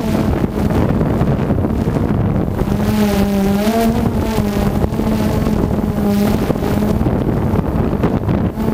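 DJI Phantom 2 quadcopter's electric motors and propellers humming steadily as heard from its onboard GoPro, the pitch wavering and rising briefly about three and a half seconds in as the motors adjust speed. Gusty wind buffets the microphone throughout.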